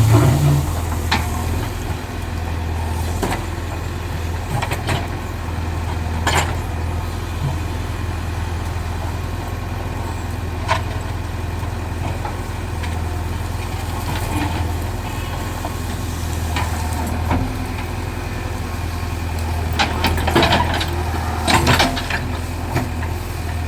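Heavy diesel machinery engine running steadily, with scattered knocks and clanks, several of them close together about twenty seconds in.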